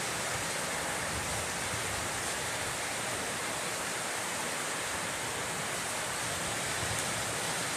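Heavy rain falling steadily, a dense, even hiss with no thunder.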